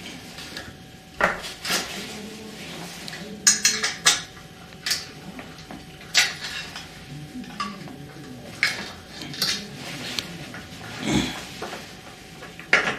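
Irregular knocks and clinks of a hard plastic castor base and its support pole being handled and fastened together with a screw from underneath, the base tipped over and set back on the floor.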